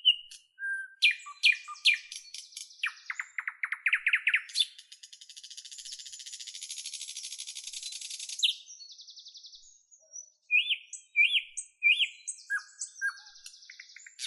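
Birds chirping and singing in a mix of short, varied high calls and whistled phrases, with one long buzzing trill lasting about three and a half seconds in the middle.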